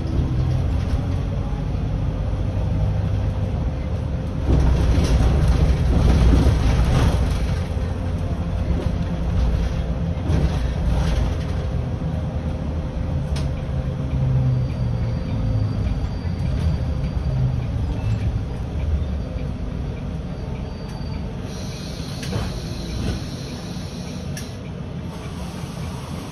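Volvo 7900 Hybrid city bus on the move, heard from the driver's cab: a steady low rumble of drivetrain and tyres on the road, with a few knocks from bumps. It gets slowly quieter over the second half.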